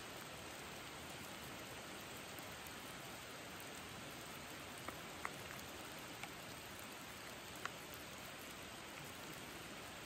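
Steady rain falling, a soft even hiss, with a few single drops landing a little louder around the middle.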